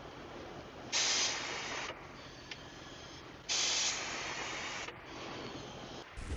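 Two hissing bursts, each strong for about a second and then trailing off more softly, with a small click between them.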